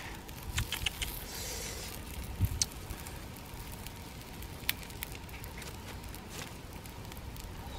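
Charcoal fire under fish cooking on a flat stone slab: scattered sharp crackles and pops over a steady hiss, with a few soft knocks from the fish being handled on the stone in the first few seconds.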